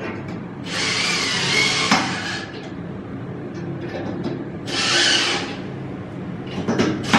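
Cordless drill running against a stainless-steel countertop frame in two bursts of a second or two each, with a sharp knock near the end.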